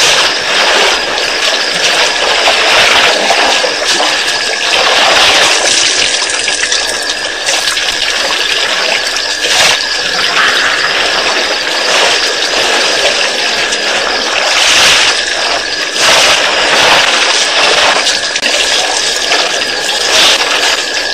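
Water splashing and gushing as elephants drink at a waterhole, sucking water up their trunks and spraying it into their mouths, in irregular surges. A thin steady high whine runs underneath.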